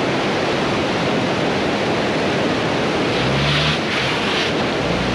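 Rushing white-water mountain river: a steady, loud roar of water. About three seconds in, a car's low engine hum joins it as the car drives across the bridge over the river.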